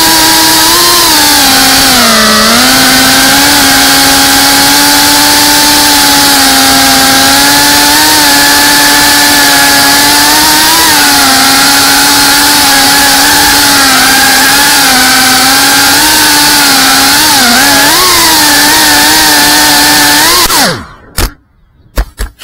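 FPV quadcopter's brushless motors whining loudly, the pitch wavering up and down with the throttle. About twenty seconds in the whine drops in pitch and cuts off suddenly, followed by a few sharp knocks.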